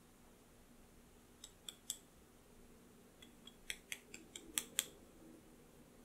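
Light, sharp taps of a fine-mesh sieve being knocked to sift cocoa powder into a glass mixing bowl: three taps, a pause, then a quicker run of about eight.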